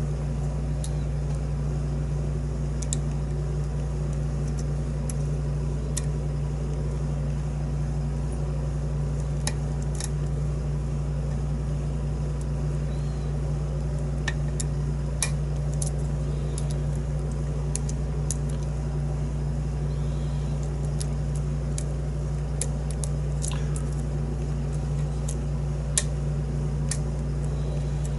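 Faint, irregular metallic clicks and ticks of a lock pick and tension wrench working the pin stack of a challenge lock, over a steady low hum.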